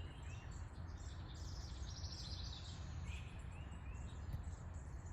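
Birds chirping outdoors: scattered short calls with quick pitch glides, and a brief fast trill about two seconds in, over a steady low rumble.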